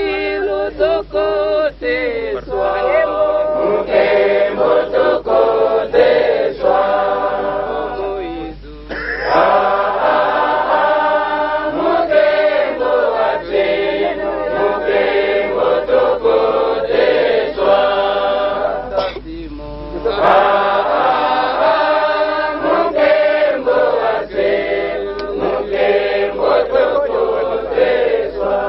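Choir singing, several voices holding notes together, in long phrases broken by two short pauses.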